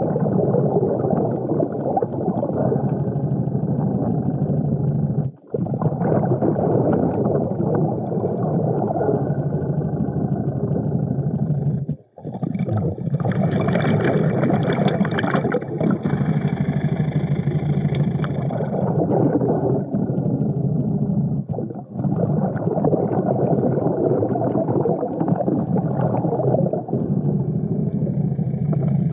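Underwater noise picked up by a diver's camera in a river: a steady muffled rumble and gurgle of moving water, with a brighter bubbling hiss a little past halfway. It drops out briefly three times.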